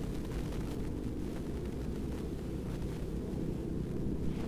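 Wind buffeting the microphone: a steady low rumble with no distinct events.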